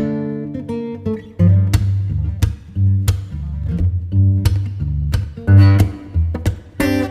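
Background music: plucked and strummed acoustic guitar with a deep bass line.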